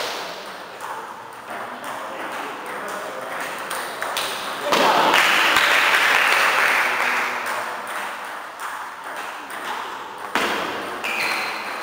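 Table tennis ball clicking off bats and the table during play, with voices. About halfway through, a loud rushing noise starts suddenly and fades over about three seconds.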